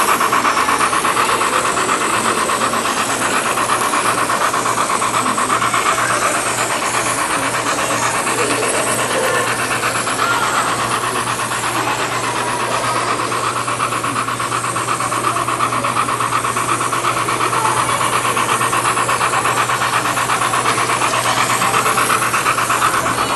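HO-scale model steam train running steadily along the layout track, its wheels rattling on the rails over a constant motor hum.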